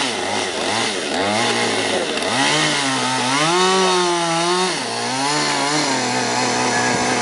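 Two-stroke chainsaw cutting the felling cut through the center of a tree trunk. The engine pitch rises and falls several times as the saw revs and bogs down under load in the wood.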